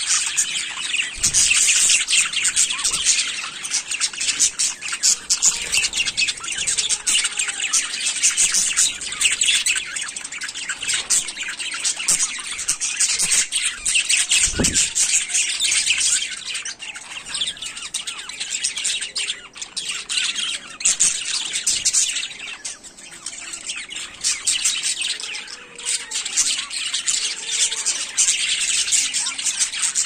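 A flock of budgerigars chirping and warbling at once, a dense, unbroken high-pitched chatter from many birds.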